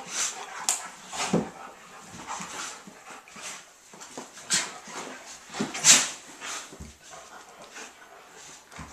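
A German Shepherd and an Akita play-fighting: dog vocal noises mixed with scuffling on the rug, coming in short irregular bursts, the loudest around six seconds in.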